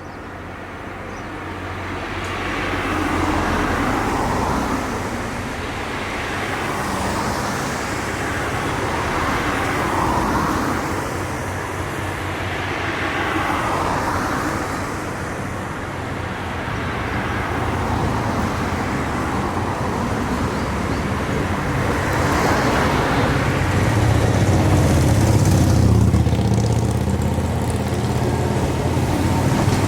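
Road traffic passing in several slow swells, with a low hum building and growing louder over the last several seconds.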